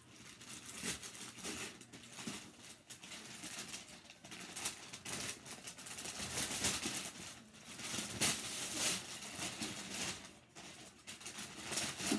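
Gift wrapping paper being torn and crumpled by hand as a wrapped box is unwrapped: irregular rips and rustling that grow louder and busier about halfway through.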